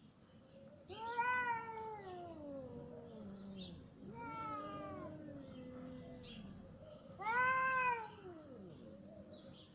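Cats meowing back and forth: three long, drawn-out meows about three seconds apart, each sliding down in pitch as it ends. The first and last are the loudest.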